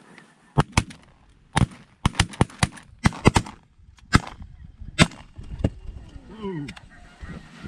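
A volley of about a dozen shotgun blasts from several hunters firing Benelli Super Black Eagle inertia-driven semi-automatic shotguns. The shots overlap rapidly in the first few seconds, then come more sparsely, with a few calls near the end.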